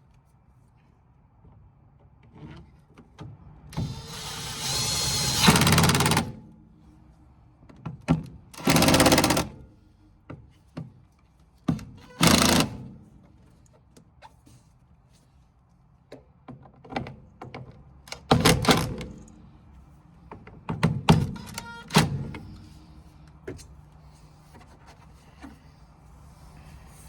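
A cordless drill driving screws into furnace sheet metal in about five short runs, the longest about two seconds, with clicks and knocks of metal parts being handled between them.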